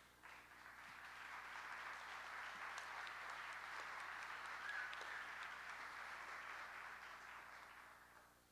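Auditorium audience applauding: a crowd's clapping that builds over the first couple of seconds, holds, then dies away near the end.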